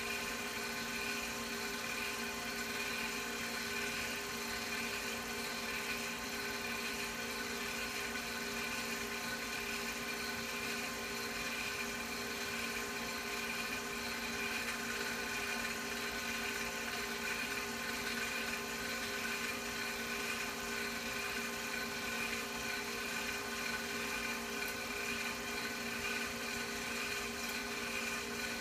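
Film projector running: a steady motor and fan whir with a constant hum of several fixed tones, unchanging throughout.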